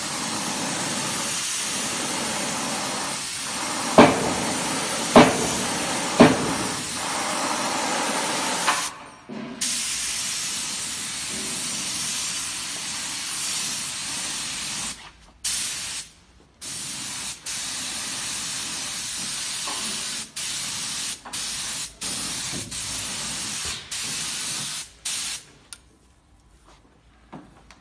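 Compressed-air spray gun spraying, a steady hiss, with three sharp knocks about four to six seconds in. Later the trigger is worked in short bursts, the hiss stopping and starting again many times before it stops near the end.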